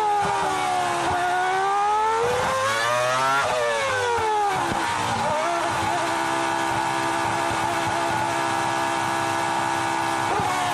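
Onboard sound of the Renault R24 Formula One car's V10 engine. Its revs fall, rise briefly, then drop in steps as it downshifts and brakes for the pit entry. For the last several seconds the engine note holds flat and steady, held on the pit-lane speed limiter, and it drops near the end as the car slows for its stop.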